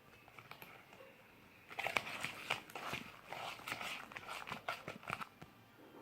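Glue-and-borax slime being mixed as it starts to set, giving a dense run of sticky squelching clicks and crackles for about three and a half seconds, starting about two seconds in.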